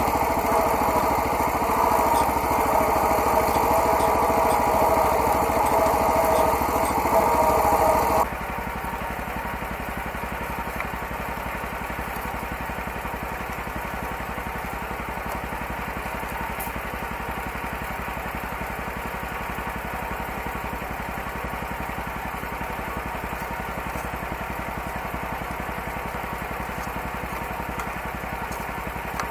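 Homemade garden tractor's small engine running hard while pulling a two-bottom plow, then about eight seconds in it drops suddenly to a quieter steady running, the tractor standing with the engine still on.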